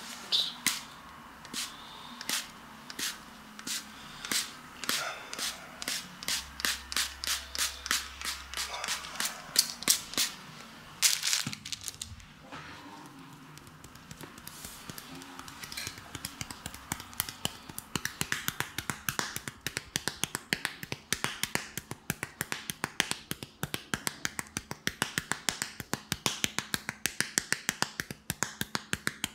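A hand spray bottle misting a liquid repeatedly, a few sprays a second. About halfway through it gives way to rapid, light fingertip tapping and slapping on the wet skin of a bare chest, many small clicks a second.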